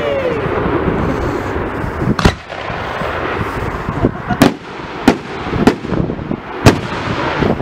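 Fireworks display: aerial shells bursting with sharp bangs, about five of them between two and seven seconds in, over a continuous hiss.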